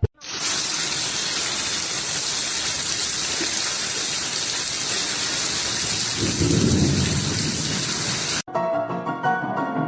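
Steady heavy rain, with a low rumble of thunder about six to seven seconds in. It cuts off abruptly near the end, and piano music follows.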